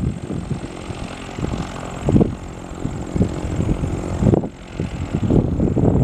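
Cessna 172P Skyhawk's four-cylinder piston engine running steadily at low taxi power, with wind buffeting the microphone in irregular gusts, loudest about two seconds in and just after four seconds.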